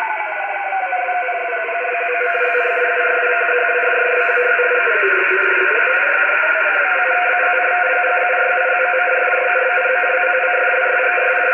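RTTY data signal received in USB on a shortwave receiver: a loud, steady stack of tones over a hiss. The tones slide down in pitch as the tuning knob is turned, and about five seconds in they dip and come back up.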